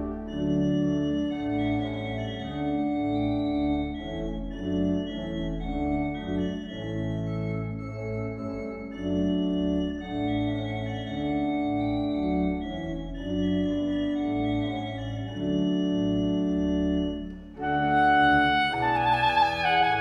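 Church organ playing a slow passage of sustained chords. About three seconds before the end, a soprano saxophone comes in with a melody over it.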